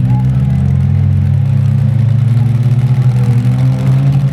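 Engines of demolition derby minivans and pickup trucks running: a steady low engine drone with slight rises and falls in pitch.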